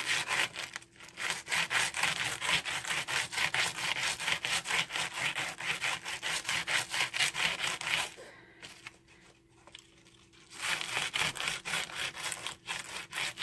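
Die brush scrubbed briskly back and forth over die-cut cardstock to pop the small cut-out pieces free: a rapid, scratchy rubbing that stops about eight seconds in and starts again some two seconds later.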